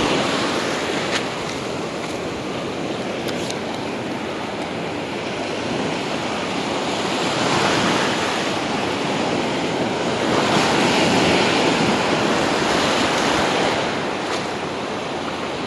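Ocean surf breaking and washing up the sand in the shallows, a steady rush that swells louder around the middle and again a little later as waves break.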